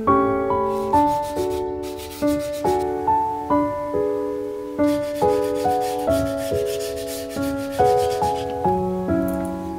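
Gentle piano background music playing a slow melody, with a scratchy rubbing noise over it in two stretches, the later one a cloth wiping a wooden basket.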